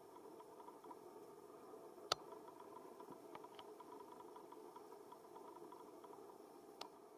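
Near silence: a faint steady background hiss, broken by one sharp click about two seconds in and a fainter click near the end.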